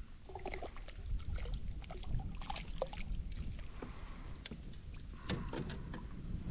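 A small hooked smallmouth bass splashing at the surface beside a kayak and being scooped up in a landing net, with scattered light splashes, clicks and knocks of gear against the hull over a low rumble of wind on the microphone.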